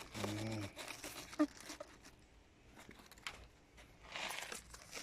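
Packing material being handled while a boxed air conditioner is unpacked: crinkling and rustling with scattered light knocks, a longer rustle about four seconds in. A short vocal hum right at the start.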